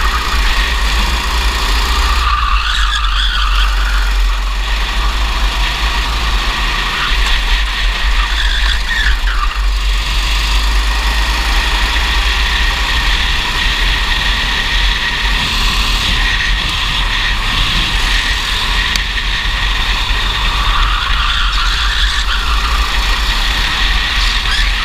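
Racing kart's engine running at speed, recorded onboard; its pitch rises and falls several times as the kart brakes and accelerates through the corners, over a steady low rumble.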